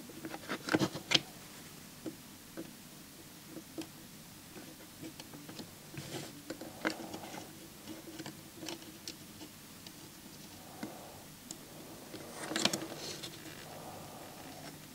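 Scattered small clicks and scrapes of metal tweezers and fingers working at a CD player's plastic tray and loading mechanism, fitting a rubber drive belt. The clicks are louder about a second in, again around the middle, and in a short cluster near the end.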